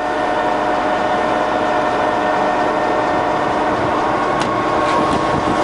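Colchester Triumph 2000 centre lathe running, with the spindle turning at 80 RPM and the carriage travelling under power feed. Its gearing gives a steady mechanical whir with a constant whine, and a few faint ticks come in the second half.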